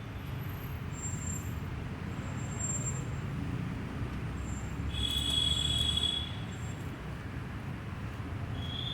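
A steady low rumble of passing vehicles, with a brief high squeal about five seconds in, when it is loudest.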